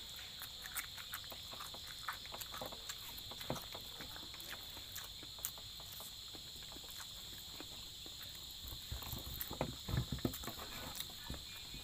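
Close-up eating sounds: faint wet chewing and mouth clicks as grilled chicken, rice and raw chili are eaten by hand, over a steady high-pitched hum. About nine seconds in come a few louder low knocks and clicks as fingers work rice on the plate.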